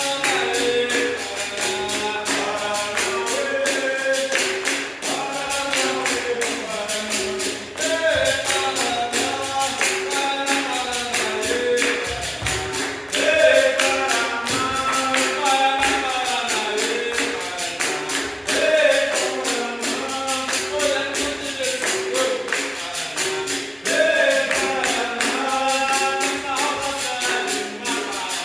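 Capoeira roda music: a berimbau being played, steady rhythmic hand-clapping and jingling percussion, with voices singing over it.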